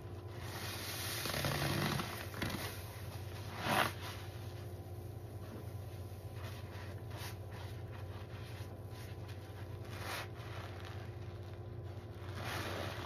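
Hands squeezing soap-soaked sponges in a sink of thick foam: wet squelching and crackling of suds, with louder squeezes about a second or two in, near four seconds, around ten seconds and again near the end.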